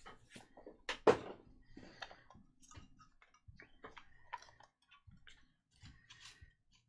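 Clicks and taps of hard clear plastic card cases being handled, opened and set down on a table, with the loudest knock about a second in.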